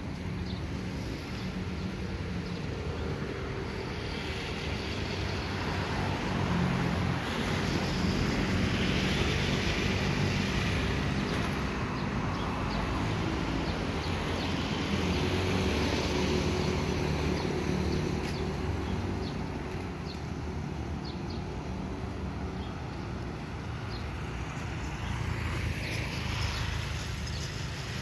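Steady running noise of a moving road vehicle, engine hum and tyre rumble, swelling and easing every several seconds.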